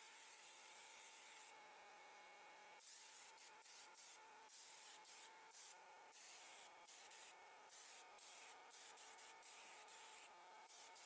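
Faint spraying hiss from a handheld foam sprayer wetting a car's bodywork with shampoo foam, cutting in and out in short spurts, over a faint steady tone.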